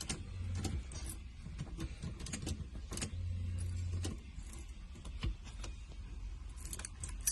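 Clicks and light knocks of small parts of a steering-wheel horn assembly being handled, twisted and snapped into place. A low hum comes in twice, each about a second long.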